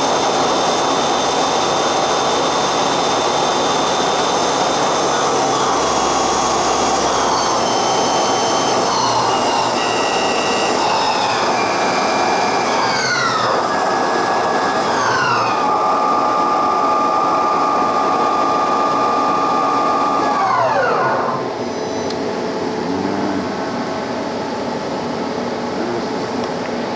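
Bridgeport Powerpath 15 CNC lathe spindle running at about 4,270 rpm with a steady multi-tone whine, then slowing in steps to about 2,000 rpm and winding down to a stop about 21 seconds in. A quieter steady machine hum remains after the stop.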